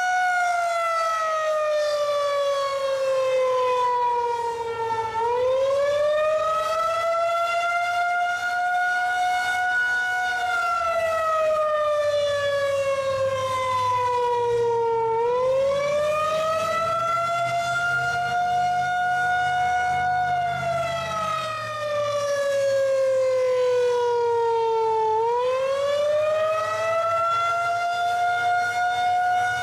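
Federal Signal 2001-130 outdoor warning siren sounding the wailing attack signal. Its pitch slides slowly down, climbs quickly back up and levels off, in a cycle of about ten seconds, three times.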